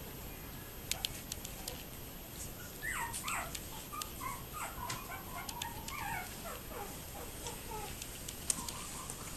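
Newborn Yorkiepoo puppies whimpering: a run of many short, high cries, several falling in pitch, starting about three seconds in and dying away near the end, with a few faint clicks throughout.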